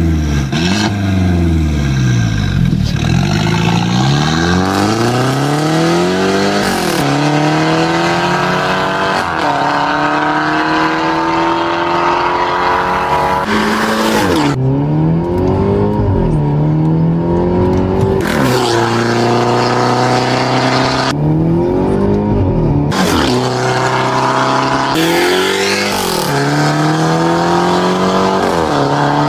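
Mercedes-Benz E250 (W213) turbocharged 2.0-litre four-cylinder through an RES valved aftermarket exhaust with the valve open. It is revved, then pulls hard through several upshifts: the pitch climbs and drops back at each change.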